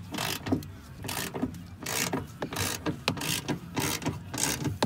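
Hand socket ratchet clicking in a run of short strokes, about two a second, as it loosens a 13 mm door bolt.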